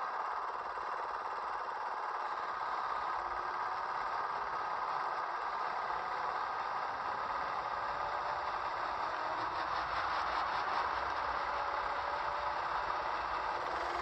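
Go-kart engine running steadily as the kart laps the track, with faint rises and falls in pitch as it speeds up and slows, heard as the onboard camera's recording played back from a screen.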